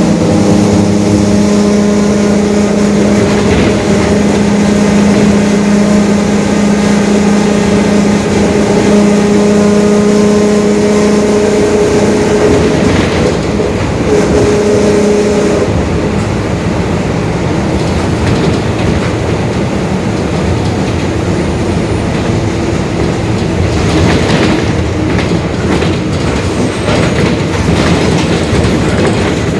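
Mercedes-Benz OF-1721 bus under way, heard from inside, with a steady whine from the droning differential over the running diesel and body rattle. About halfway through the whine stops, and the ride goes on with rattles and knocks.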